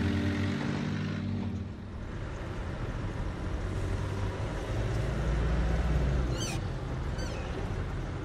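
A car's engine and road noise as it drives, a steady low rumble that swells about five seconds in. The car runs on used frying oil. Background music fades out in the first second or so, and two brief high chirps come near the end.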